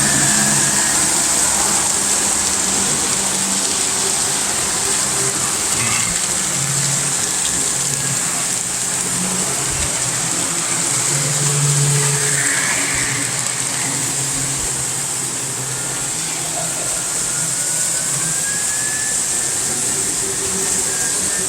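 Model trains running on the layout: a continuous hum and rumble of small electric motors and wheels on track that swells and fades a little.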